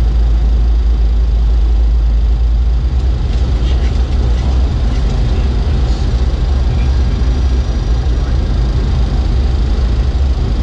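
Steady, loud flight-deck noise of a Boeing 737-300 on approach: a deep, even rumble with airflow hiss over it.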